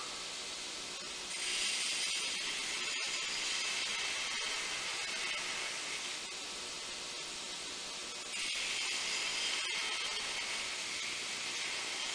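Belt grinder with a coarse 36-grit belt grinding the profile of a forged, tempered steel knife blade. There are two grinding passes of several seconds each, a high hiss over the steady noise of the running belt: the first starts about a second in, the second about eight seconds in.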